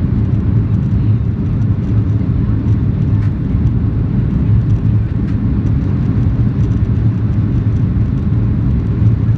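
Steady low rumble of an airliner's jet engines and wheels heard inside the cabin as the plane rolls along the taxiway, with faint light ticks over it.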